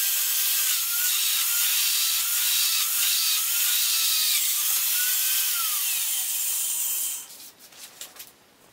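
Electric drill boring a hole through aluminum plate: a steady cutting hiss with a wavering squeal from the bit, stopping about seven seconds in, followed by a few faint clicks.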